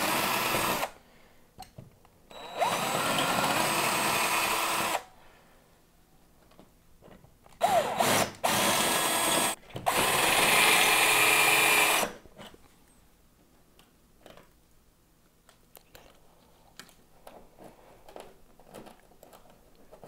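Cordless drill drilling new mounting holes into a wall, running in a series of bursts over the first twelve seconds, several of them starting with a rising whine as the motor spins up. After that, only small clicks and taps of handling.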